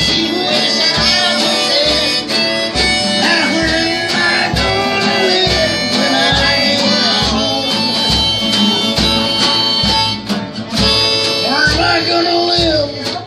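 Small live band playing a blues-style number: harmonica lead over guitars and a drum kit keeping a steady beat of about two a second.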